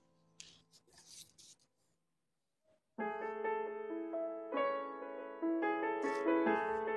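A few faint clicks in near silence, then about three seconds in, background piano music starts with a gentle run of notes.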